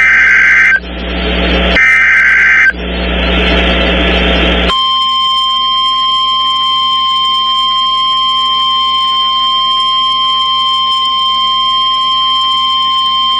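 NOAA Weather Radio emergency alert: the last two of the SAME digital header bursts, raspy screeching data squawks about a second long with radio hiss between them. About five seconds in, the steady 1050 Hz weather warning alarm tone starts and holds unbroken for about nine seconds, the signal that a warning, here a flash flood warning, is about to be read.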